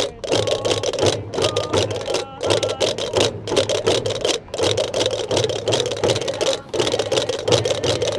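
Gomeran chácaras (large wooden castanets) clattering in fast continuous rolls, together with traditional tambor drums, breaking off briefly several times.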